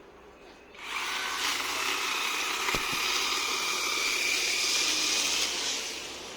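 Chainsaw motor running with a steady high whine, starting up under a second in and winding down shortly before the end.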